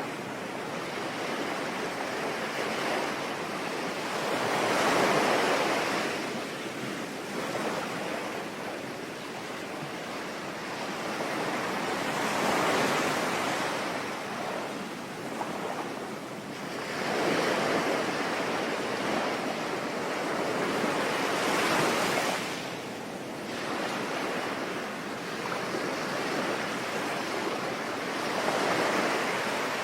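Sea waves breaking and washing up the shore, the surf swelling up and falling back about five times, over a steady hiss of falling rain.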